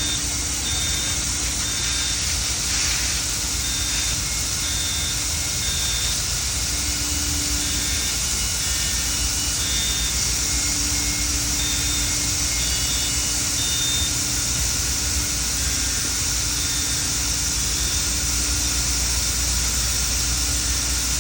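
Deluge fire-protection system discharging water, a steady loud rushing spray noise with a low rumble underneath. Faint short beeps come and go over it.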